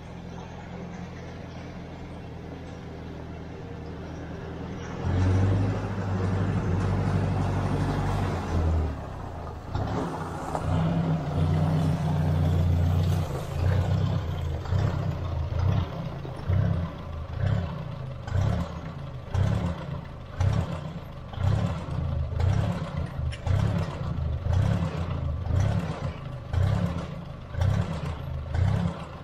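Ford tractor's four-cylinder engine, fitted with a new aftermarket carburetor, running. It grows louder about five seconds in as the tractor drives up close. From about halfway on it runs unevenly, its sound swelling and dropping about once a second.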